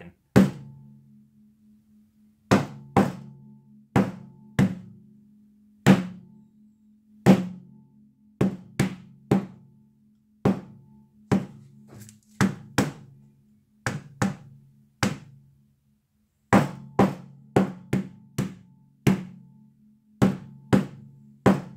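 Tack hammer striking a paint-covered cotton canvas panel on a table, some two dozen sharp blows at an uneven pace, some in quick runs and some after short pauses. Each blow sets off a low, gong-like ringing from hanging wires near the table that vibrate with every hit.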